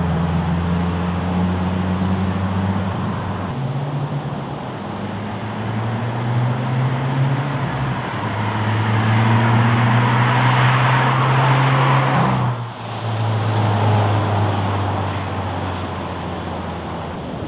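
2018 Subaru WRX's turbocharged flat-four running through a Greddy GPP RS cat-back exhaust as the car accelerates away. The exhaust note steps down and builds again several times through gear changes. It is loudest about ten seconds in, drops out briefly just after twelve seconds, then carries on more evenly.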